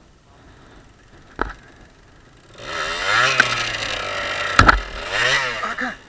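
Kawasaki dirt bike engine revved hard while the bike is bogged in a muddy ditch: a quick rise in pitch about two and a half seconds in, held for a second or so, then a second shorter rev that rises and falls near the end. Two sharp knocks, one about a second and a half in and one in the middle of the revving.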